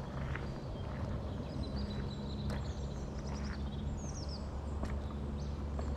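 Footsteps on a rocky hill path, a few sharp scuffs and clicks, with wind buffeting the head-mounted microphone in a steady low rumble. A small bird chirps several short falling notes in the middle.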